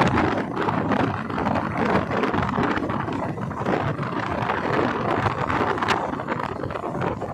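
Wooden boat under way on open water: a steady rush and rumble of the boat running, with wind buffeting the microphone.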